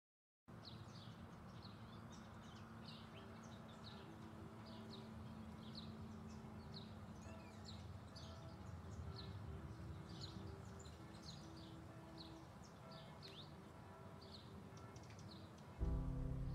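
Faint chorus of small birds chirping, short high downward-sweeping calls several a second, over a soft low background. Music comes in loudly near the end.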